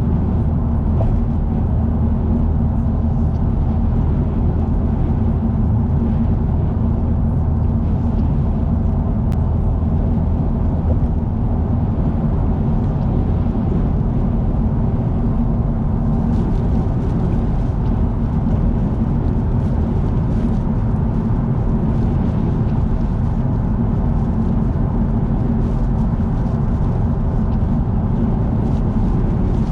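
Car driving at expressway speed, heard from inside: a steady low drone of tyres and engine with road and wind noise. A faint scattered ticking comes in over it from about halfway through.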